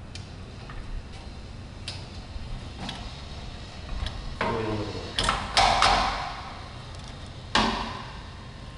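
Metal door-handle hardware being fitted to an iron door: scattered light metallic ticks, then several louder clanks with a short ring after them, the loudest a little past halfway and another near the end.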